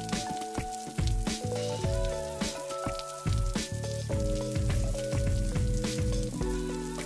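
Calm background music of held notes that change every half second or so, over a steady scatter of soft, irregular ticks.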